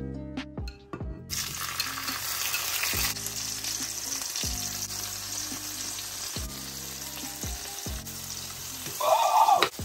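Cooking oil sizzling in a frying pan, a steady hiss that starts a little over a second in, with a louder burst of sizzling near the end. Soft background music plays underneath.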